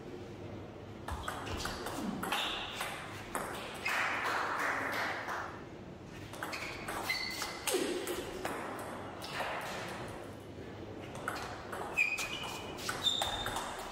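Table tennis rallies: the ball clicking off the bats and the table in quick runs of hits, with short pauses between points.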